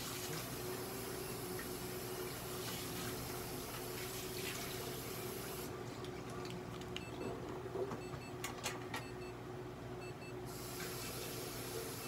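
A steady hiss with a faint hum. Partway through, a few short electronic beeps and clicks sound as buttons on a light-therapy unit's control panel are pressed to set the unit.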